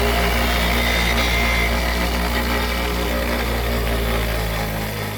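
Bench grinder running steadily with a low motor hum while the steel of a bowl gouge in a sharpening jig is ground against the wheel. The low hum drops away near the end.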